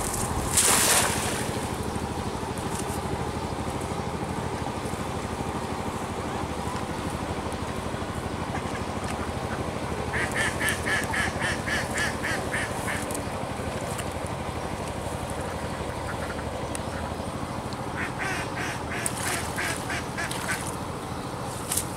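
A cast net lands on the pond with a short, loud splash about a second in. Later, ducks quack in two rapid runs, one near the middle and one near the end, over a steady low hum.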